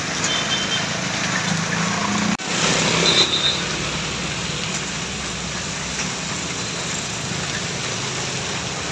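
Bus and roadside traffic noise: engines running steadily, with a brief dropout a little over two seconds in and a short high-pitched toot about three seconds in.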